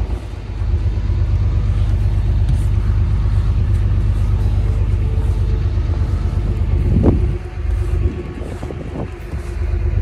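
Wind buffeting the microphone in a snowstorm, a heavy low rumble that eases off about seven and a half seconds in.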